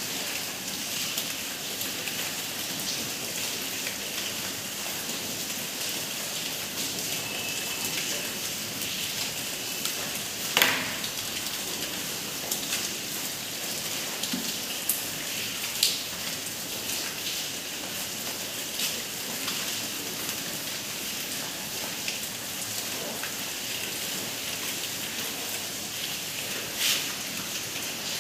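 Marker writing on a whiteboard: a few short taps and a brief faint squeak over a steady, even hiss.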